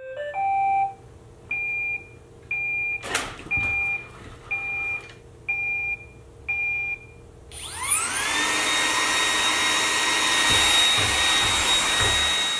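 Roomba 980 robot vacuum playing a short rising chime, then six evenly spaced beeps about a second apart, with one sharp knock about three seconds in. A little past halfway its vacuum motor spins up in a rising whine and settles into a loud, steady run.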